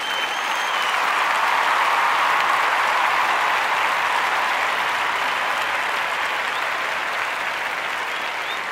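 Crowd applause, steady clapping that swells over the first couple of seconds and then slowly fades.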